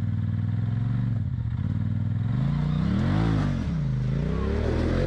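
Side-by-side UTV engine running at low revs, then revved up and back down twice in short throttle pulls.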